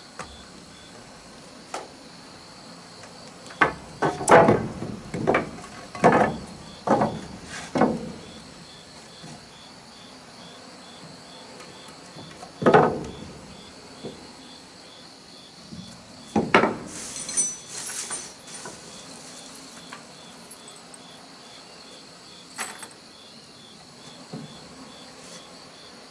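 Scattered heavy knocks and thuds of timber being handled and set in place: a quick run of about six, then single ones and a short group later. Under them an insect chirps in a steady, even pulse.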